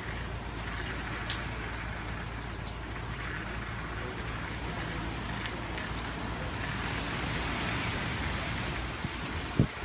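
Hurricane rain and wind: a steady hiss of heavy rain with a low rumble underneath, swelling slightly about seven seconds in. A couple of brief knocks come near the end.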